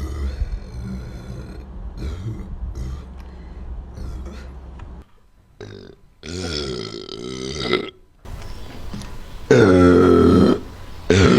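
A young woman burping several times: a few faint short burps in the first seconds, a longer burp about six seconds in, then two long, loud burps near the end.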